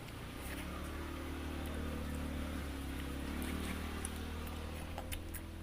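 A motor vehicle's engine running, its pitched drone swelling in the middle and easing off toward the end, over a steady low hum. A few light clicks come near the end.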